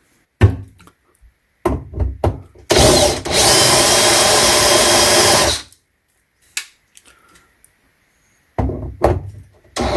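A power drill runs steadily for about three seconds, turning a screw-extractor bit in reverse to bite into a stripped screw. Before it, a few clicks and knocks come from the bit being changed, and more short knocks follow near the end.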